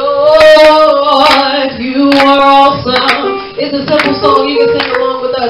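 A woman singing through a microphone and PA, a melody with long held notes.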